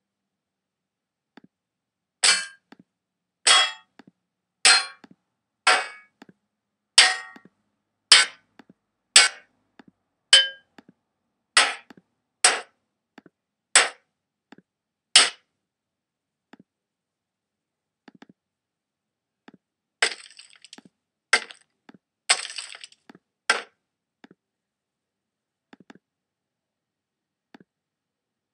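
Bullet-impact sound effects: twelve sharp cracking hits about a second apart, a few with a short ringing tone after them. After a pause of about five seconds come four more hits in quick succession.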